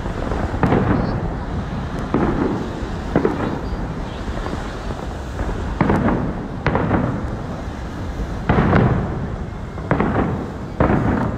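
Aerial fireworks shells bursting overhead: about eight loud bangs at uneven gaps of a second or two, each trailing off in a short rumbling echo.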